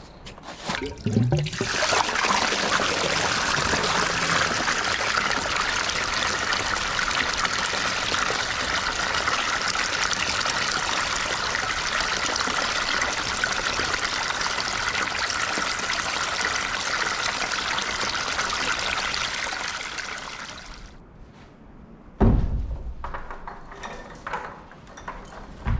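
Water gushing from a black pipe elbow into a plastic livestock water trough, a steady splashing pour that stops about 21 seconds in. About a second later a loud thump, then clinking as a wooden barn gate is chained.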